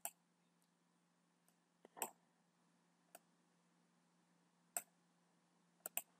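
A few computer mouse clicks at irregular intervals over near silence, with a quick double click near the end.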